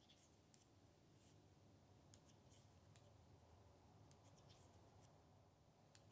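Near silence, with scattered faint clicks and light scrapes, about one or two a second, from metal circular knitting needles and bulky yarn as stitches are purled.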